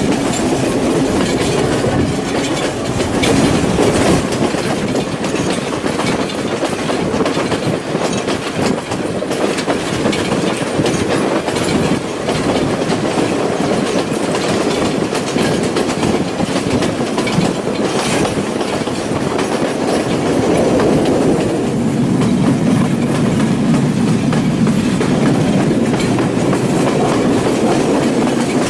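Passenger train carriage running along the track, a steady rumble with irregular clicks and knocks from the wheels and rails, one sharper knock about two-thirds of the way through.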